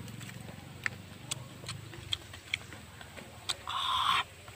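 Eating grilled catfish by hand: scattered sharp clicks and smacks from the mouth and fingers, with a short rustle of handling the fish on a banana leaf about three and a half seconds in.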